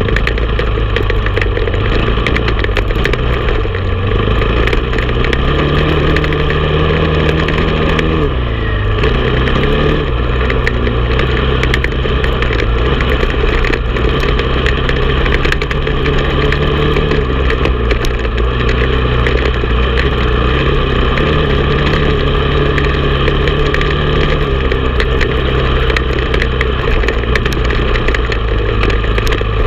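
Honda TRX450 quad's single-cylinder four-stroke engine running under throttle while riding, heard close from a camera on the handlebars. The engine pitch shifts with the throttle, with a short drop about eight or nine seconds in before it picks back up.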